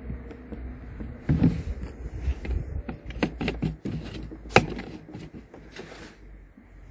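Knocks and clinks from handling a metal chain-oil can on a table while filling a chainsaw's oil tank, with the sharpest clack about four and a half seconds in, over a steady low rumble.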